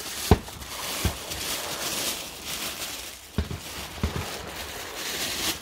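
Thin plastic wrapping rustling and crinkling as a wooden shotgun stock is drawn out of it by hand, with four short, dull knocks, two near the start and two past the middle.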